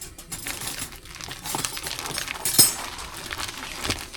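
Rustling and crinkling from things being handled, with scattered small clicks and one sharp clink about two and a half seconds in.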